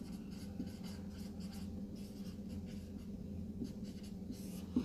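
A marker pen writing a word on a whiteboard: faint, short scratching strokes over a low steady hum.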